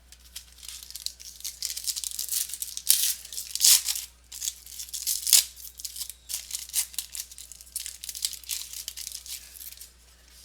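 A pack of 2015 Panini Elite baseball cards being torn open and handled: the wrapper crinkles and rustles in an irregular run of crackles, with a few louder rips about three and five seconds in.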